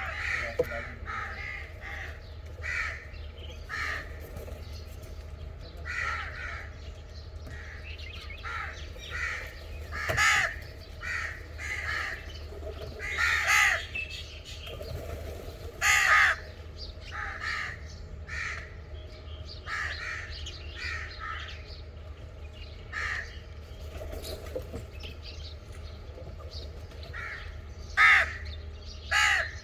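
Crows cawing again and again, short harsh calls coming every second or two, a few of them louder than the rest.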